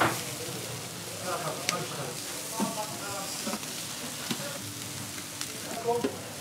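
Meat sizzling steadily in wire grill baskets over a long charcoal grill, with a few sharp metal clinks as the hinged baskets are handled.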